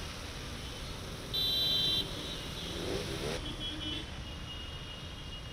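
Road traffic: motorcycle and scooter engines running with a steady rumble, and a vehicle horn sounding loudly for under a second about a second and a half in, followed by a shorter horn about two seconds later.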